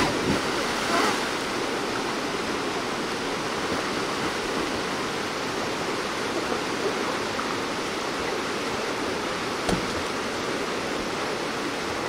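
Steady rush of water from a mountain valley stream's rapids, with one short knock near the end.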